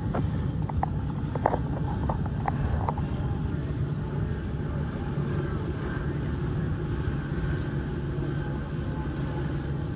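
An engine running steadily, a low even drone, with a few short clicks in the first three seconds.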